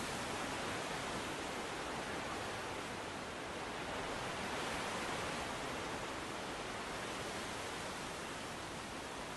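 Steady, even hiss of outdoor background ambience, with no distinct sounds standing out.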